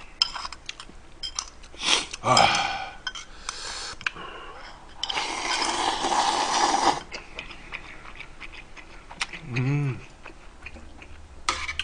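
A person slurping spicy ramen broth from a bowl, one long slurp of about two seconds midway and a shorter one earlier. Scattered light clicks of chopsticks against the bowl and pot run throughout.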